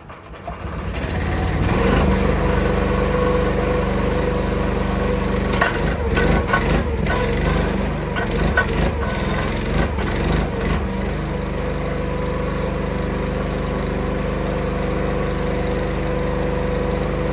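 Log splitter's small gasoline engine coming up to speed over the first couple of seconds and then running steadily while the hydraulic wedge is tested. Irregular clanks and knocks sound over it from about five to eleven seconds in.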